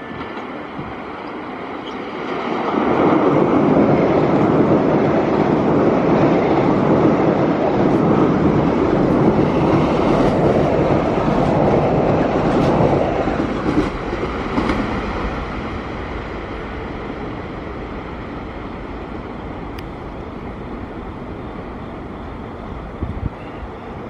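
Metro-North M8 electric multiple-unit train passing through a station at speed. Its noise swells a couple of seconds in, stays loud for about ten seconds, then fades away slowly.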